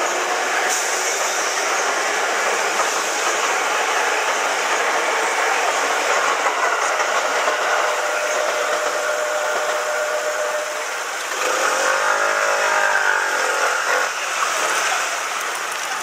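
Electric commuter train passing close by at a level crossing: a steady rumble of wheels on rail. Near the end, a brief whine rises and falls.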